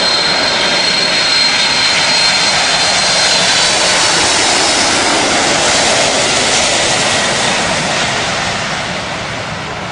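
Boeing 747 jet engines passing low overhead on landing approach. A loud, steady rush with a thin high whine for the first few seconds, fading away near the end.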